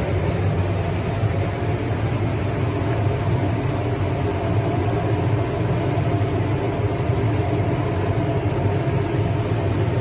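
Industrial microwave dryer running: a steady low mechanical hum with a broad rush of fan-like noise over it, unchanging throughout.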